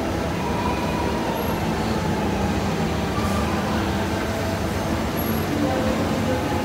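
Steady low rumble of indoor background noise, with faint, distant voices.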